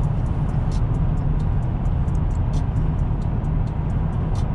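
Steady low road and engine rumble heard from inside the cab of a vehicle driving at highway speed.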